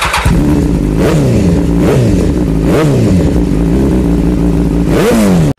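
A motor vehicle engine, after a short noisy burst, catches and idles, revved in four quick blips that rise and fall back. It cuts off suddenly at the end.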